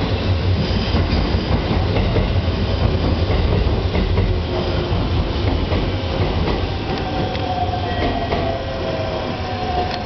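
Train noise on a station platform: a steady low rumble with faint clatter. Near the end, a pitched tone slides slowly downward.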